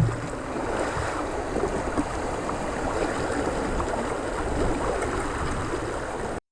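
Steady rippling wash of river water around a kayak, which cuts off suddenly near the end.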